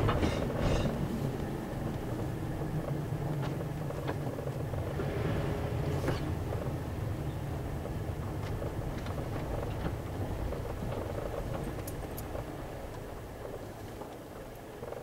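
Car engine and tyre noise heard from inside the cabin, a steady low rumble while driving slowly, with a few faint clicks and knocks. The rumble eases a little toward the end.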